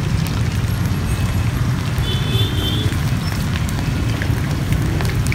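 Sticky-rice-coated chicken drumsticks deep-frying in a pot of hot oil, sizzling and crackling steadily, over a low steady rumble.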